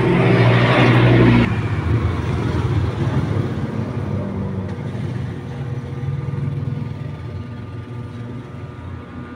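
A motor engine running. A louder, noisier part stops abruptly about a second and a half in, leaving a lower, steady running sound that slowly fades.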